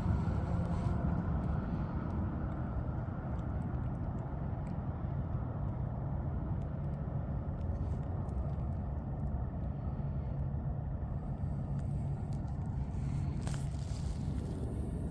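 Steady low rumble of a running motor vehicle, with a brief click near the end.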